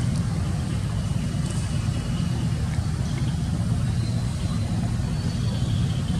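Steady low rumble at an even level.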